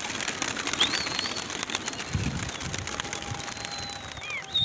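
A large flock of pigeons taking off and flying up, the dense clatter of many wings flapping at once. High whistled notes come about a second in and again near the end.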